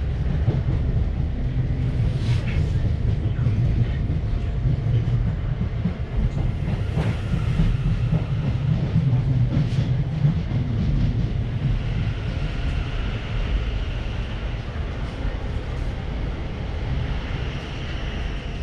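Passenger train running on the rails, heard from on board: a steady low rumble of wheels on track with a few sharp clicks. A faint high squeal comes in twice in the second half.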